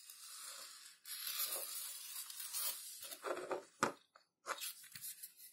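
Rustling and scraping handling noise from a small plastic servoless retractable landing-gear unit being handled by hand, with a sharp click near four seconds in.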